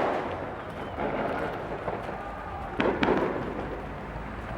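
New Year's fireworks and firecrackers going off over steady background noise, with one sharp bang nearly three seconds in.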